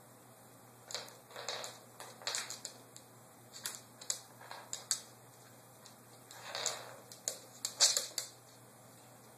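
A dog's claws clicking and scrabbling on a hardwood floor as it pounces on and bats a biscuit about, the biscuit tapping and skidding on the boards. The clicks and short scrapes come in three spells, the loudest a little before the end.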